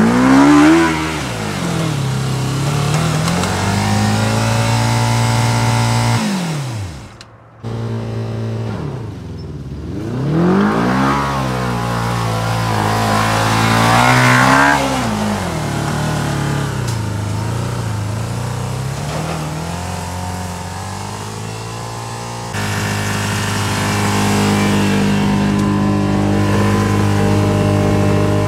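Suzuki GSF400 inline-four motorcycle engine in a Kawasaki Mule utility vehicle, revving up and falling back several times as it is driven. The sound drops out for a moment about seven seconds in, and the engine runs at a steady speed over the last several seconds.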